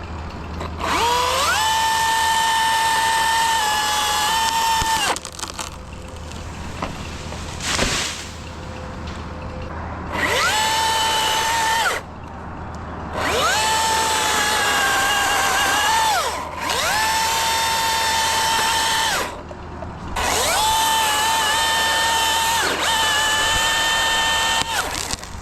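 Chainsaw cutting through a maple limb: the saw runs up to full speed in five runs of a few seconds each, with a steady high whine, and drops back between runs.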